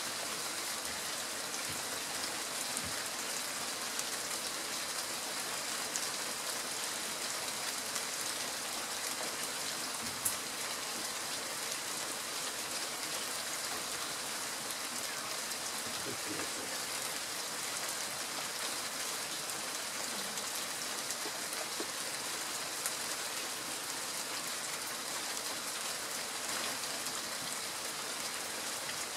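Steady rain falling: an even hiss with scattered single drop ticks, and one sharper drop hit about ten seconds in.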